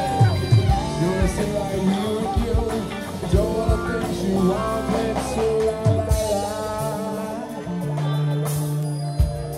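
Live funk band playing: drum kit, electric guitar, bass and keyboard, with a wavering lead melody over a steady bass line and drum beat.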